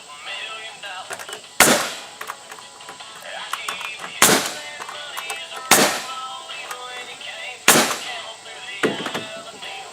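Four loud, sharp bangs about one and a half to two seconds apart, with a smaller one near the end, over music with singing.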